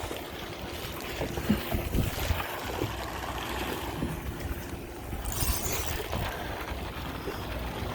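Wind buffeting the microphone aboard a boat at sea: an irregular low rumble with a steady wash of noise over it.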